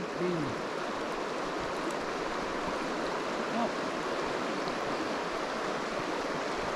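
Creek water running, a steady rush.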